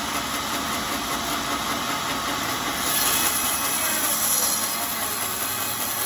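Large band sawmill running steadily as a teak board is fed through its blade. The high hiss of the cut gets louder about three seconds in.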